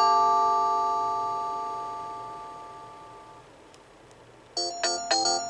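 Panasonic KX-TGA680B cordless handset playing ringtone previews through its speaker: an electronic chime chord rings out and fades over about three seconds. After a second of quiet, a quicker melody of short repeated electronic notes starts near the end.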